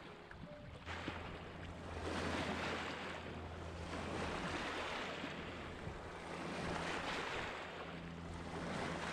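Small lake waves lapping onto a shore of pebbles and rocks, the wash swelling and easing about every two to two and a half seconds, over a steady low rumble.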